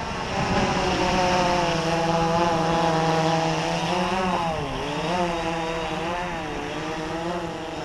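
Flip FPV Pro quadcopter's electric motors and propellers buzzing as it flies in low and close, the pitch wavering up and down with throttle corrections, with a dip about four and a half seconds in.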